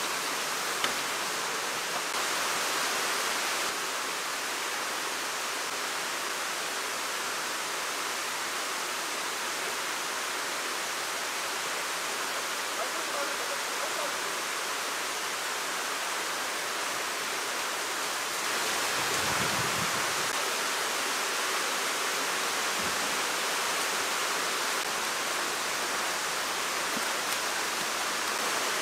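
Steady rush of running and splashing water in fish-farm tanks and bins, with a few dull low thumps about two-thirds of the way through.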